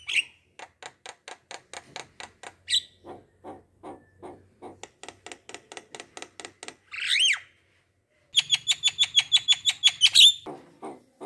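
Bird calls: a rapid series of short repeated notes, a louder rising call past the middle, then after a brief pause a fast run of high notes.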